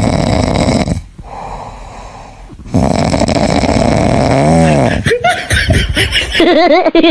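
Sleeping golden retriever puppy snoring: a loud rasping snore, a quieter breath, then a longer snore. In the last second a warbling tone comes in over it.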